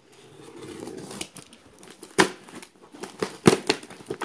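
Packing tape on a cardboard parcel being slit with a box cutter and torn: a scratchy rasp for about the first second, then several sharp cracks and rips.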